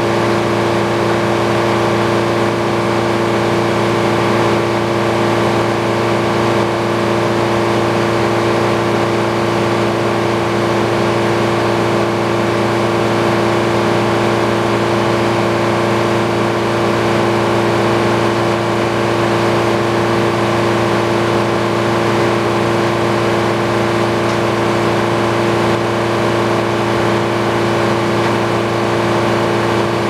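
Antique circular sawmill running at a steady speed, its large head saw spinning on a flat-belt drive: a steady mechanical hum with several constant tones.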